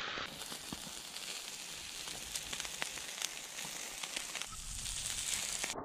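Oiled, marinated tilapia sizzling on a hot charcoal grill, a steady hiss dotted with many small crackles and pops.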